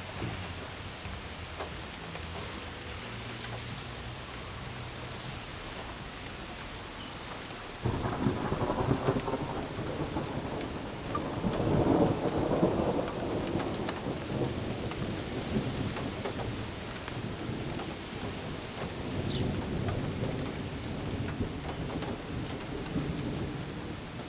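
Steady rain, then thunder that breaks in suddenly about a third of the way through, is loudest a few seconds later, and keeps rumbling unevenly to the end.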